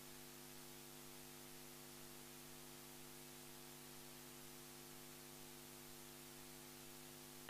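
Faint, steady electrical mains hum in the sound system: a few even low tones over a light hiss, with nothing else.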